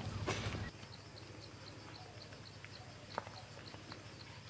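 Quiet rural outdoor ambience: a faint high chirp repeats about four times a second, with a few scattered light clicks. For the first moment a louder low rumble with footsteps-like clicks is heard, which stops abruptly.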